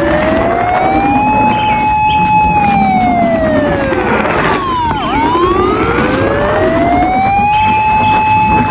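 Wailing fire-engine-style siren: the pitch climbs over about two seconds, holds, then falls. About five seconds in it drops sharply low and climbs into a second wail that holds near the end.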